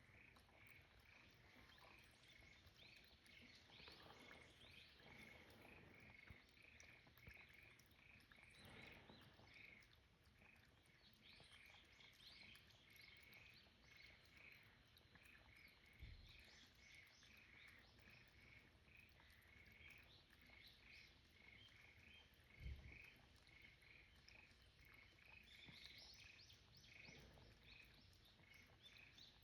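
Faint, steady high chirping from an outdoor animal chorus, repeating evenly several times a second, with two short dull thumps past the middle.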